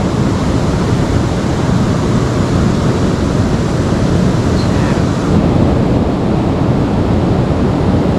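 Steady rushing of a fast-flowing river's water.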